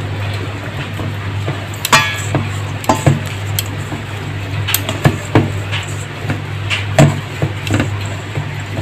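Metal tongs knocking and scraping against a stainless steel bowl while turning flour-coated chicken pieces: a string of irregular clinks, one ringing briefly about two seconds in, over a steady low hum.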